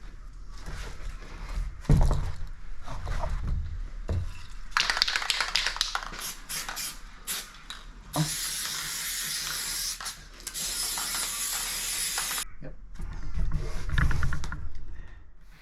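Knocks and handling clatter, then a steady hiss lasting about four seconds that stops suddenly, followed by more knocks.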